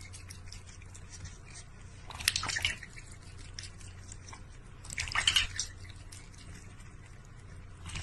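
Water dripping and splashing in a stainless steel bowl as a duck dabbles its bill in it and a cat laps from it. There are two louder bursts of splashing, about two seconds in and about five seconds in.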